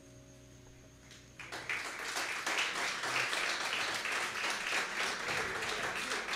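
The last sustained notes of a small acoustic ensemble fade out, and about a second and a half in an audience breaks into applause that keeps going.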